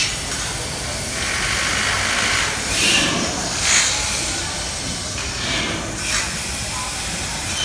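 Large multi-cylinder natural-gas compressor engine hissing steadily, with louder whooshes about three seconds in, again just before four seconds and near six seconds.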